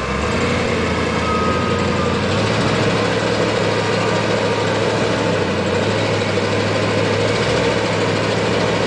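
Ford Bronco's engine running steadily under throttle as the truck sits stuck in deep mud, its note stepping up slightly about two seconds in.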